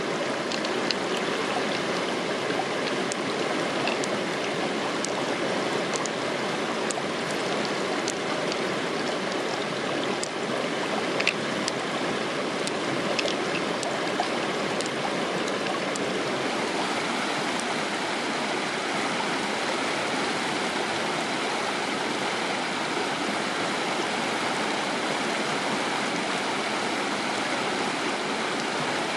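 A shallow stream running steadily. Scattered light clicks over the first half or so come from pearls and the mussel shell being handled.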